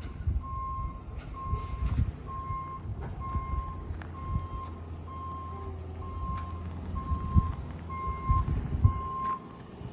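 Truck's reversing alarm beeping steadily, about once a second, over its idling engine, with a few metallic knocks; the beeping stops shortly before the end.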